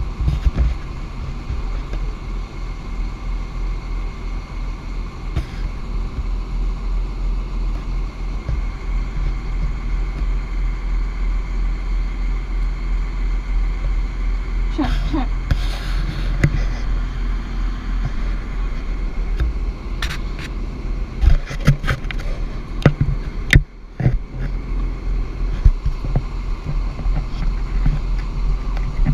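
Steady low rumble of a moving vehicle, with scattered sharp knocks and crackles coming in from about twenty seconds in.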